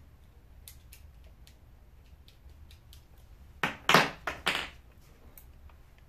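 Hands handling a mountain bike's rear wheel and its parts: faint scattered ticks, then a short clatter of three or four loud rattling knocks about four seconds in.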